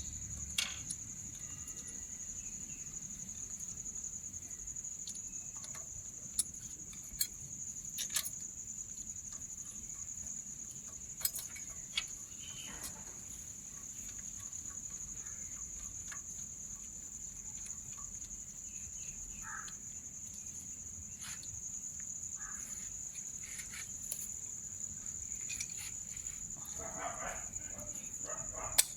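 Steady high-pitched insect trill, like crickets, with occasional sharp clicks over it.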